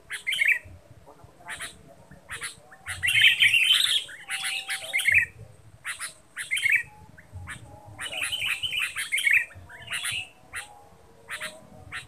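Sooty-headed bulbul calls: clusters of harsh chattering phrases with short, sharp clicky notes between them, repeated throughout.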